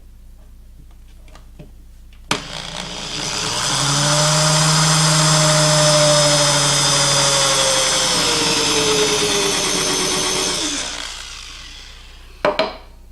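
Power drill boring through a plastic PVC pipe end cap into a wooden block beneath it. It starts about two seconds in and runs for about eight seconds, its motor whine dropping in pitch toward the end before it stops.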